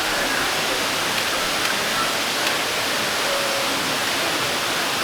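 Steady rushing noise, like falling water, with faint voices in the background.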